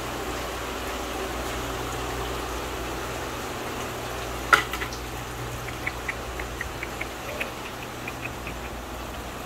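Steady hum and hiss of the fish room's pumps and aerated water. About halfway through there is one sharp knock, followed by a run of light ticks for a few seconds.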